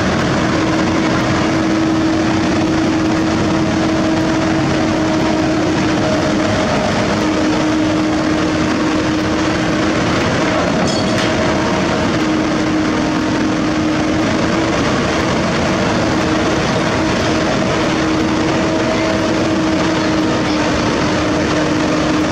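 Heavy diesel engine running steadily at a constant speed, a loud continuous drone with a steady hum that shifts slightly in pitch a few times.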